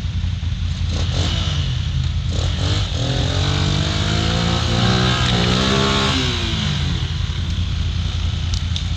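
ATV engine running steadily; its revs climb and fall back between about three and seven seconds in.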